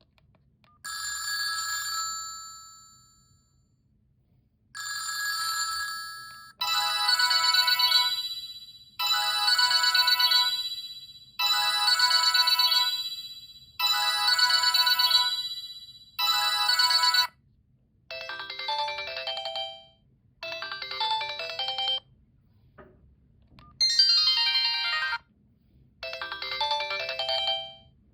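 Sony Ericsson J230i mobile phone playing its built-in ringtones through its small speaker. First come two short ringing tones, then one electronic melody phrase repeated about every two seconds. Past the middle it changes to a different, lower melody in short repeated bursts with brief gaps between.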